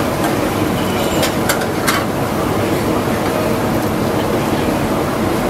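Steady, loud background din with indistinct voices and a few sharp clicks about one to two seconds in.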